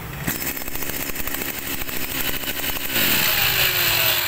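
Small two-stroke brush cutter engine running with a rapid putter. About three seconds in it gets louder, with a faint tone that slowly drops in pitch.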